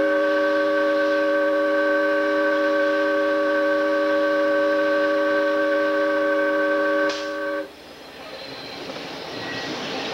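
Diesel locomotive's chime air horn sounding one long, steady blast of several tones together for about seven and a half seconds, then cutting off. After it, the locomotive's running and wheel noise on the rails rises.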